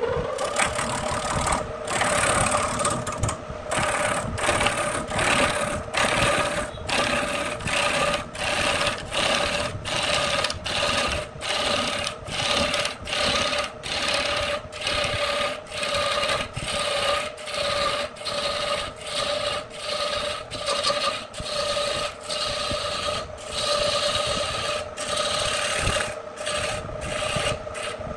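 Turning tool cutting into a wood blank spinning on an electric lathe: a rasping, scraping cut in regular strokes, about three every two seconds, over the steady whine of the lathe motor.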